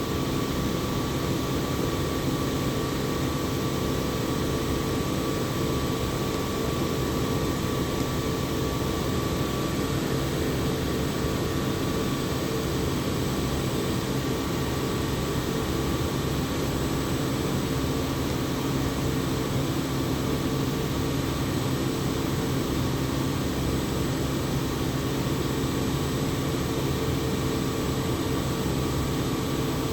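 Industrial air compressor running steadily: a constant machine hum with several steady tones, and a fainter higher whine that fades out about ten seconds in.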